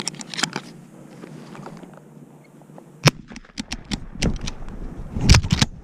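Camouflage clothing rubbing and knocking against a body-worn camera's microphone: a run of scuffs and sharp bumps, with the loudest knocks about three seconds in and just past five seconds.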